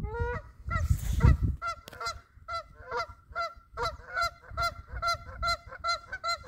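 A flock of geese honking: many short calls in quick succession, several birds overlapping, about three calls a second. A low rumble on the microphone covers the first second and a half.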